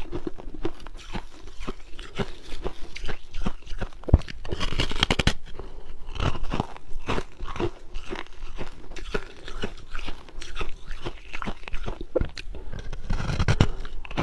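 A person biting and chewing refrozen ice up close, a continuous run of irregular crunches.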